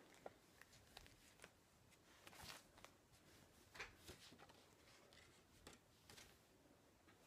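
Near silence with faint, scattered rustles and clicks of paper being handled as a greeting card is taken out and opened.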